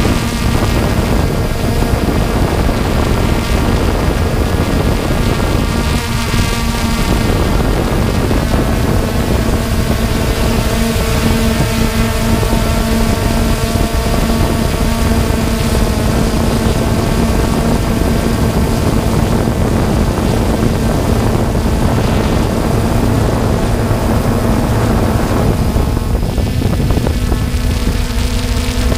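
3DR Solo quadcopter's motors and propellers humming steadily in flight, with wind noise on the microphone; the hum's pitch rises slightly near the end.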